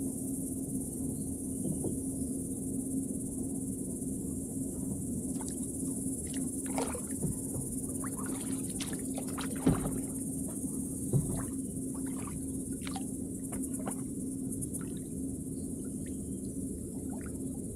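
Kayak paddle strokes in calm water: the blades dip, splash and drip in short scattered splashes through the middle of the stretch, with two sharp knocks about a second and a half apart halfway through. Behind them a steady high drone of insects and a low steady hum.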